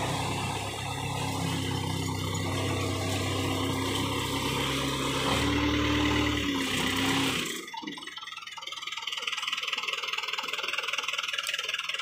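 Backhoe loader's diesel engine running steadily, with a higher whine over its hum that rises slightly around the middle. About seven and a half seconds in, the sound drops abruptly to a quieter, rattly engine note.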